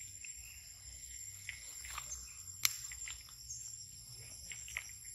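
Insects shrilling steadily at a high pitch, with scattered soft crackles of footsteps through dry grass and leaves. One sharp click about two and a half seconds in is the loudest sound.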